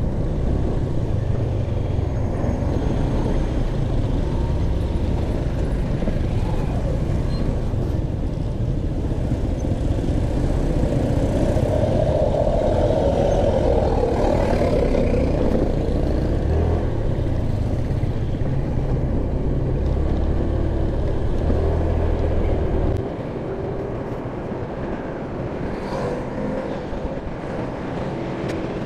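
Ride noise from a motor scooter in traffic: a steady low rumble of engine and passing air, with a truck close alongside adding a louder drone about halfway through. The low rumble drops off suddenly near the end.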